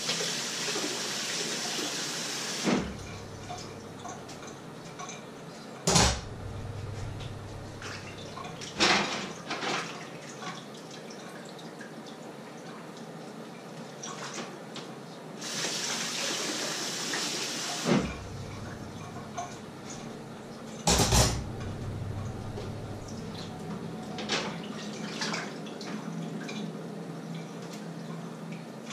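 Washing up by hand at a kitchen sink: the tap runs in two bursts, at the start and again just past halfway, and in between dishes and pots clink and knock, with three sharp loud knocks.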